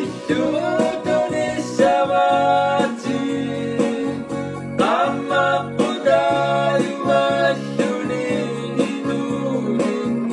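Music: a guitar playing with a singing voice.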